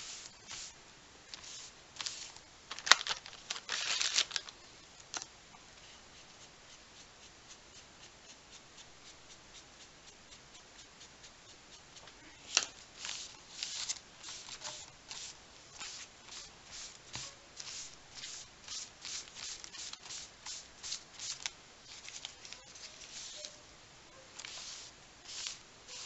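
A damp baby wipe scrubbed in short back-and-forth strokes over thin journal paper, blending Inktense pencil into a wash: a run of brushy rubbing strokes, several a second, that pauses for several seconds in the middle. A sharp click about three seconds in.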